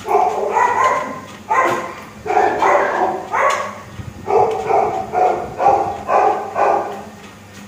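A dog barking and yowling about ten times in quick succession, each call short and pitched, stopping about seven seconds in. A steady low hum of the running treadmill motor sits underneath.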